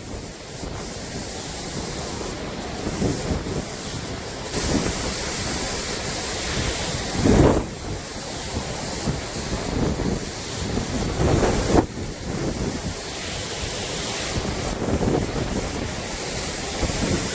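High wind blowing in gusts and buffeting the microphone, with stronger gusts about seven and twelve seconds in.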